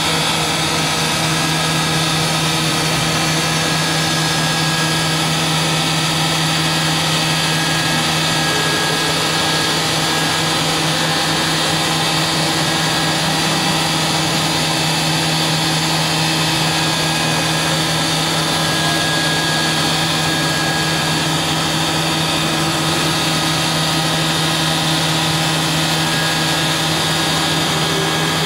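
Fadal CNC vertical machining center running a machining cycle: the spindle runs at a steady speed, giving a steady whine of several held tones over the hiss of flood coolant spraying inside the enclosure.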